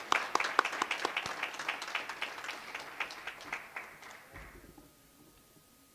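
Applause from the graduates and guests in a large hall, many hands clapping, tapering off and dying away about four and a half seconds in. A faint steady tone remains after the clapping stops.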